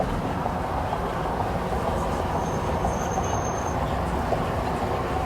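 Steady low mechanical rumble, with a brief thin high-pitched tone for about a second midway.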